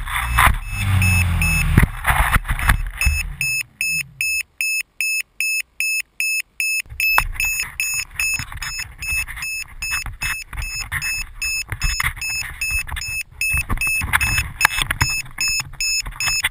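Electric motor of a foam FPV plane running, then winding down in a falling pitch about three seconds in as the plane comes down in the grass. A rapid repeating electronic beeping sounds over it, and from about seven seconds in there is rustling and handling noise as the plane is picked up.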